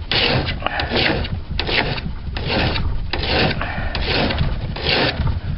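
A hand file rasping across the steel cutting edge of a lawn mower blade in about seven even strokes, roughly one a second: the blade being sharpened.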